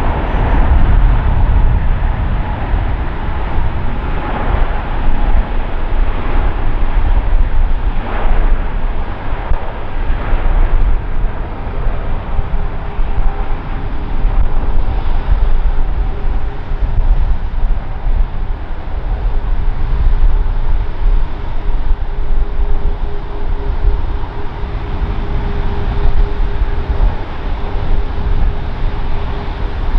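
Airbus A350-900's Rolls-Royce Trent XWB turbofans at takeoff thrust during the takeoff roll: a loud, steady jet roar, heaviest at the low end, with a faint steady tone joining in about halfway through.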